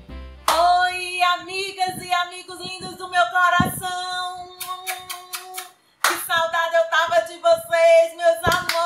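A woman's voice holding a long sung note at a steady pitch, twice, the first for about five seconds and the second starting about six seconds in, with hand claps between and under it.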